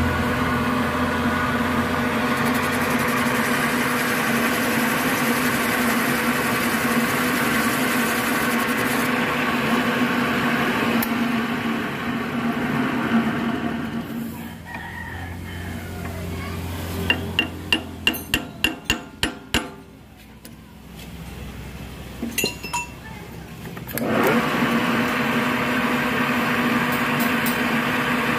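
Cylinder boring machine running steadily with a steady whine as its boring bar cuts out the cylinder opening of a motorcycle crankcase. It stops about halfway through, a quick run of about nine sharp clicks follows, then it starts again with the same whine about four seconds before the end.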